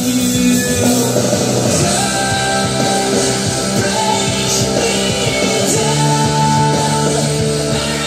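A rock song with singing, played loud through a Harley-Davidson Road Glide Special's aftermarket Cicada Audio stereo: front fairing and rear 6x9 speakers with tweeters, driven by a BDA1400.4 amplifier.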